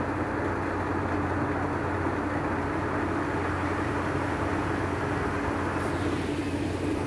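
An engine running steadily, a constant drone with a low hum and a steady higher tone that do not change.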